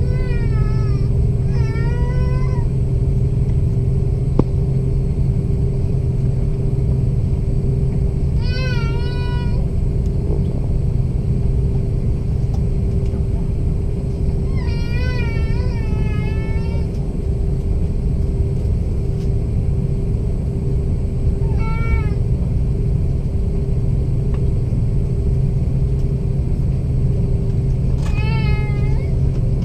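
Steady engine and cabin drone of an Airbus A330 airliner, with a low hum and a steady tone running through it. Several times, a high-pitched wavering cry rises over it, lasting about half a second to two seconds.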